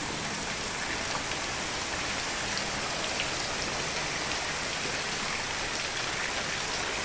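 Heavy rain falling steadily as an even hiss, with water pouring off corrugated roof eaves onto the paved courtyard.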